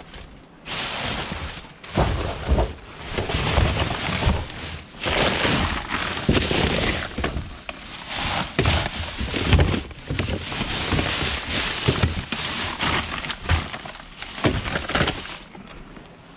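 Rummaging through rubbish in a bin: plastic carrier bags rustling and crinkling, with knocks and clatters of boxes and plastic video cases being shoved aside. It stops shortly before the end.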